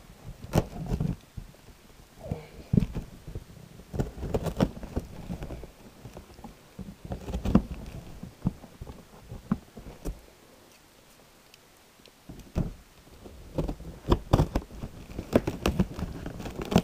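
Cardboard parcel being handled and opened: irregular knocks, scrapes and rustling, with a quiet pause of about two seconds a little past halfway.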